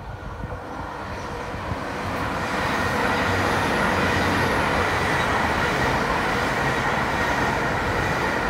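LNER Azuma high-speed train (Hitachi Class 800-series) passing close by on the track. The rush of wheels and air grows louder over the first few seconds and then holds steady, with a faint high whine running through it.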